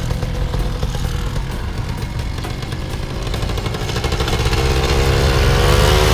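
Paramotor engine running at idle, a steady low pulsing drone that grows louder about four and a half seconds in.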